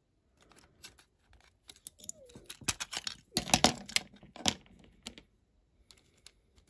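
Small plastic and metal parts of a diecast toy car clicking and scraping as they are handled, with a cluster of sharper clicks around the middle.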